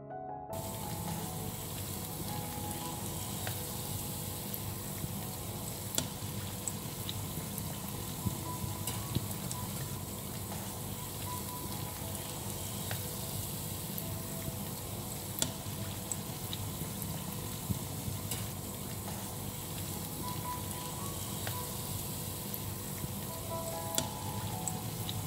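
Breadcrumb-coated pastry parcel deep-frying in hot oil in a pan: a steady sizzle with scattered sharp pops.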